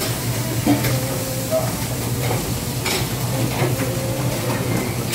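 Offal frying and sizzling in a wide metal pan while a cook stirs it with a long metal spatula, with a few sharp clinks of the spatula against the pan.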